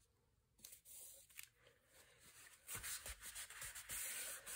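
A wad of paper towel rubbed briskly back and forth over kraft cardstock, in quick strokes of about three a second, starting a little past halfway. The strokes press the sheet down and spread the adhesive beneath it.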